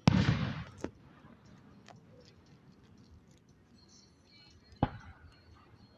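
Fireworks shells bursting: a sharp bang right at the start that trails off over about half a second, a smaller crack just under a second in, and another bang a little before the end.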